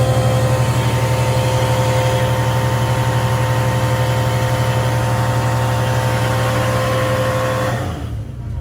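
Truck-mounted carpet cleaning unit, driven off the truck's engine, running steadily with a low drone and a whine, pulling pond water into its recovery tank. It shuts off about eight seconds in and winds down.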